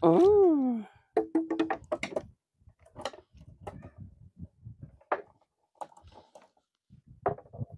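A drawn-out vocal 'ừ' and a short held hum in the first two seconds, then scattered light clicks, knocks and rattles of a wire-mesh crab trap being handled.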